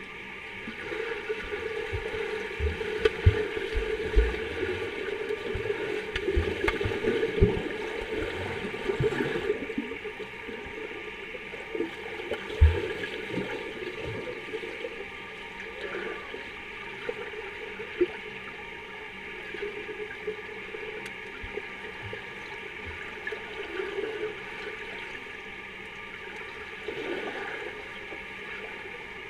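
Swimmers splashing and kicking in a pool, heard underwater: a muffled churning of water and bubbles with irregular low thumps, busiest in the first ten seconds and calmer after.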